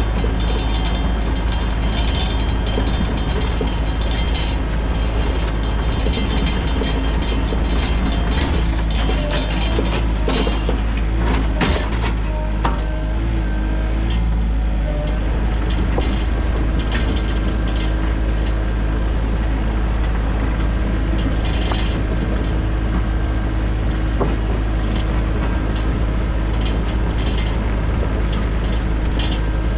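Sany mini excavator's diesel engine running steadily under load, with a few sharp metal clanks and knocks about ten to twelve seconds in.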